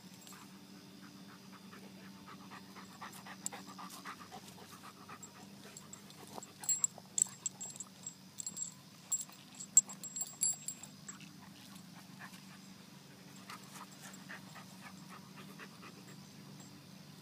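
Great Dane puppy panting and sniffing with its nose at the ground, while it plays with a locust. From about six to eleven seconds in, a cluster of sharp clicks and clinks, the loudest sounds, comes up close.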